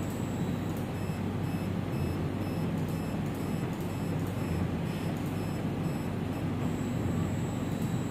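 OneTech Classic E8 ELISA microplate reader running a plate measurement: a steady low hum with faint, quick high-pitched tones repeating about twice a second, which stop shortly before the end.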